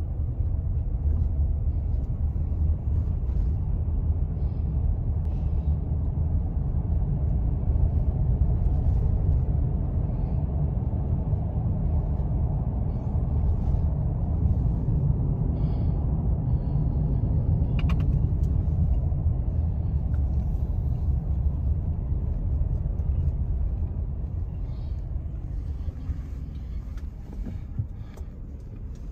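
Steady low rumble of a car driving, heard from inside the cabin: road and engine noise, growing quieter over the last few seconds.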